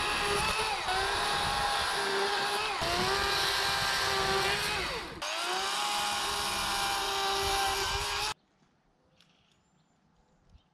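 Chainsaw running at full speed and cutting through tree roots at ground level, its pitch dipping three times as the chain bites in. It stops suddenly about eight seconds in, leaving faint bird chirps.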